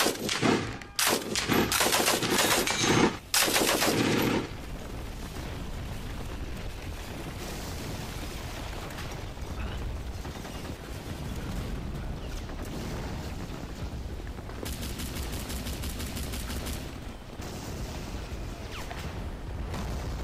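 Rapid machine-gun fire in several loud bursts over the first four seconds or so, giving covering fire, followed by a steady low background noise.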